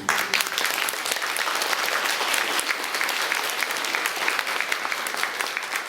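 Audience applauding, breaking out as the music ends: many hands clapping at once, dense and steady.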